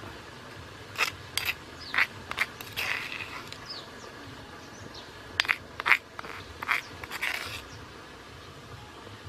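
A metal spoon scraping chili paste out of a stone mortar and tapping it off into a ceramic bowl: a string of short scrapes and clinks, in irregular clusters.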